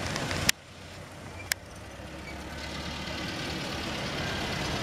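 Miniature ride-on passenger train running away along its narrow-gauge track, a steady low engine rumble, with two sharp clicks about half a second and a second and a half in.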